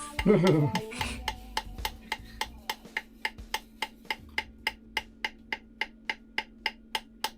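Quick, even light taps, about four or five a second, driving a shaft bearing into the cast housing of a Volvo Penta AD31 raw water pump. A faint steady hum sits underneath.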